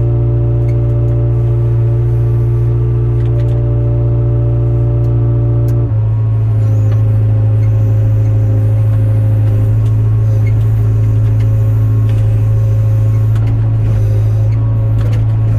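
Diesel engine of a Hyundai 02-class excavator running steadily; its note shifts abruptly about six seconds in and then holds steady.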